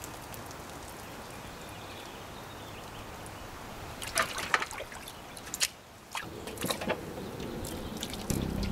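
Water trickling and splashing in a stainless steel basin holding catfish, with a few sharp clicks and knocks about four to six seconds in. Background music starts near the end.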